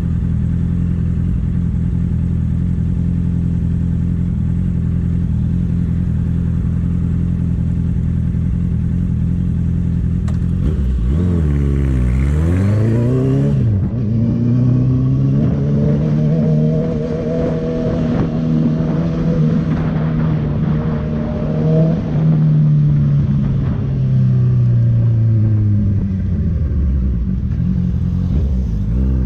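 Honda CB650F inline-four with an aftermarket Jeskap full exhaust, idling steadily, then about ten seconds in revving up and pulling away with a gear change. It then runs at a fairly steady speed, eases off near the end and picks up again.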